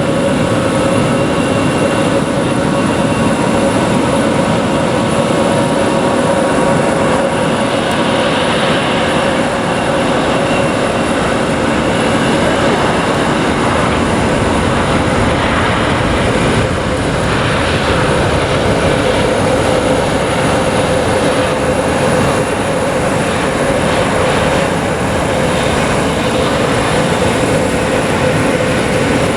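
Jet airliner engines running loud and steady, a dense rush with a steady whine held throughout.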